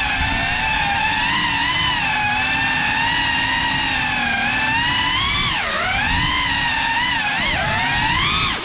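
Cinelog35 3.5-inch ducted cinewhoop FPV drone in flight: its brushless motors and propellers whine as one pitched tone that swells and sags with the throttle. The pitch drops sharply a few times in the second half.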